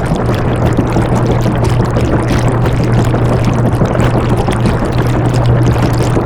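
Washing machine running: a steady low motor hum under an even, unbroken rush of water noise from the drum.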